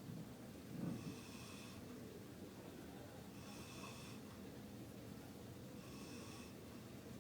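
A man snoring, three breaths about two and a half seconds apart, the first with a louder low snort.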